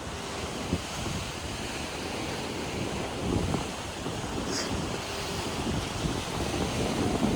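Ocean surf washing against a rocky shore, with wind rumbling on the microphone.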